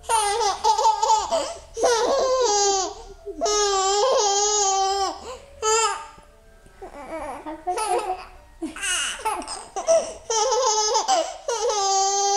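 A five-month-old baby laughing in a series of long, high-pitched, rippling bursts with short breaks between them, a quieter stretch about halfway through.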